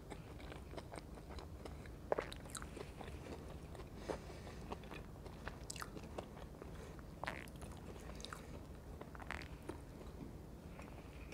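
Close-miked chewing of French fries: wet mouth sounds broken by scattered crisp crunches and clicks, the sharpest about two seconds in.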